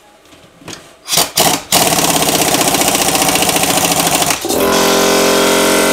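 Impact wrench tightening the generator rotor (flywheel) nut on a Suzuki DR-Z400 crankshaft: a few short blips about a second in, then continuous rapid hammering, which turns into a steadier, even tone about four and a half seconds in.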